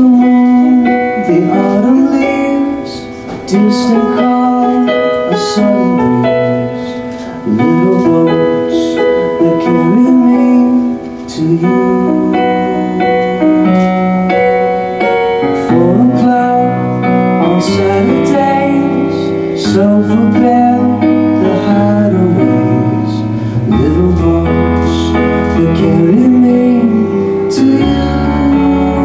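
Live band playing a gentle pop song, with electric piano and guitars; a bass guitar comes in with low notes about two-thirds of the way through.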